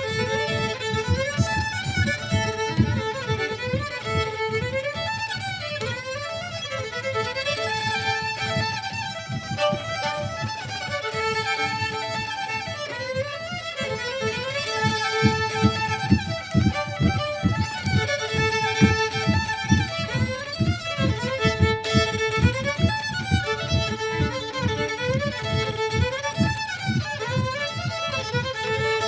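Two violins playing a melody together as a duet, over a low, evenly pulsing accompaniment.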